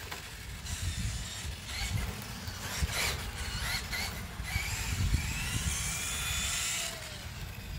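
Tamiya M02L radio-controlled car's electric motor whining as it drives, the pitch rising and falling with the throttle in about three spells, over a low rumble of wind on the microphone.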